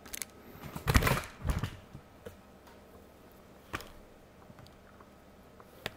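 Handling knocks and clatter, a short cluster about a second in, then a few single sharp clicks.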